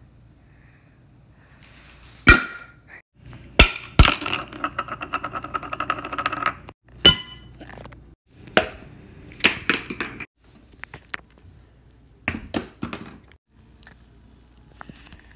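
Rubber popper toy springing up again and again, each pop a sharp crack or knock. It hits an overturned bowl, then a clear plastic box, then guitar strings. After one pop under the bowl there is a fast rattling that lasts about two and a half seconds.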